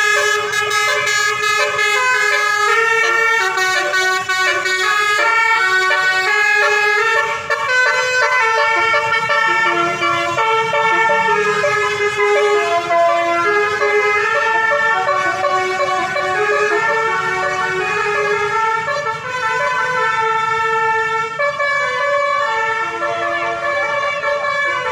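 Indonesian bus telolet horn, a basuri multi-trumpet air horn, playing a tune: short held horn notes that step up and down in pitch one after another.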